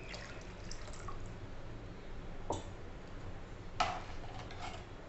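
Water poured from a steel pot into a kadhai of simmering gravy, then a steel ladle stirring it and knocking against the pan: two sharp clicks, about two and a half and nearly four seconds in, with a few lighter taps after the second.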